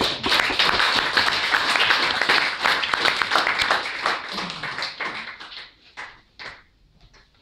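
Audience applauding: a dense round of clapping that thins to a few scattered claps and dies away about six seconds in.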